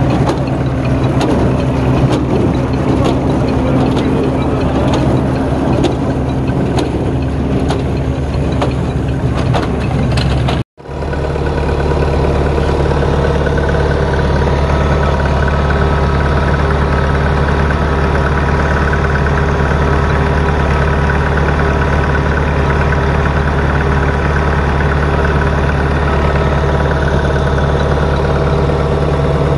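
Vintage threshing machine running at work, driven by a long flat belt from a tractor, with the tractor engine running steadily. The first part is noisier, with rapid clicking near the baler. The sound cuts out for a moment about a third of the way in, then comes back as a steadier drone with a few held tones.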